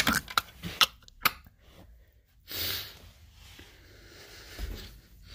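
Small toy pieces clicking together four times in quick succession, then a short breathy hiss of breath about two and a half seconds in.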